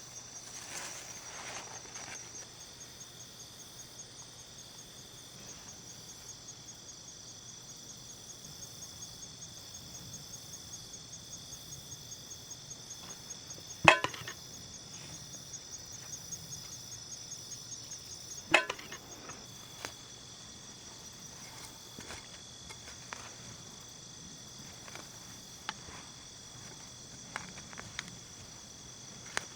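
Insects chirping in a steady, rapidly pulsing high trill, with two loud sharp cracks about halfway through, a few seconds apart, and a few fainter clicks: corn stalks being cut down.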